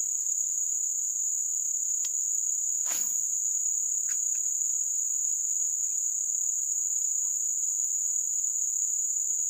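Steady high-pitched chorus of insects, unbroken throughout, with a short falling swish about three seconds in and a couple of faint clicks.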